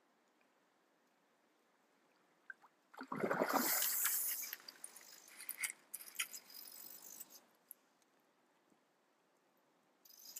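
A hooked coho salmon splashing at the surface about three seconds in, followed by scattered light clicks and ticks.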